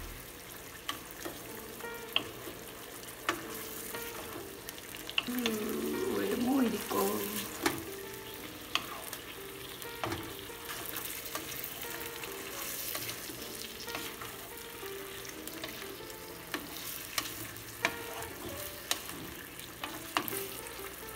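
Shrimp in chili sauce sizzling in a frying pan while a wooden spatula stirs them, with a steady sizzle and repeated sharp clacks and scrapes of the spatula against the pan.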